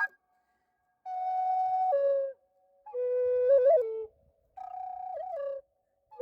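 Native American style wooden flute played solo: three short, held phrases with a quick ornamental flutter in the second and third, separated by brief pauses.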